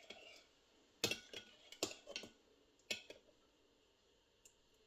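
Spoon clinking against a dish while a marinade is mixed: about four sharp clinks, starting about a second in and spread over two seconds.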